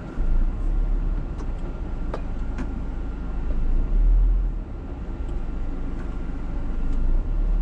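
Low rumble of a Scania R410 truck's 13-litre six-cylinder diesel heard from inside the cab, swelling about halfway through, with the truck stuck on an icy downhill slope. A few faint clicks sound over it.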